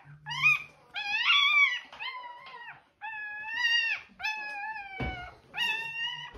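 A four-day-old German Shorthaired Pointer puppy crying in a string of high-pitched squeals, about six in a row, each half a second to a second long. It is crying in pain as its tail is held in a clamp before docking.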